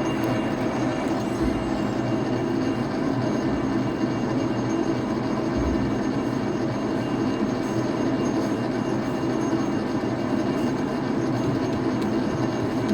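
Metal lathe running steadily, turning the welded-up hook shaft of a dough mixer as it is machined back down for its bearings.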